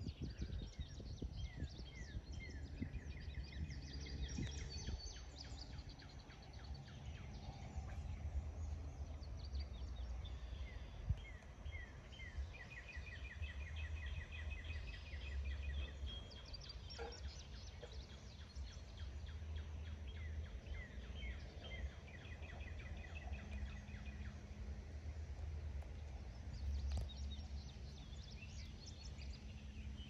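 Several wild birds singing and calling in a marsh, with strings of quick, repeated chirps and trills, over a steady low rumble. There is one brief knock about a third of the way through.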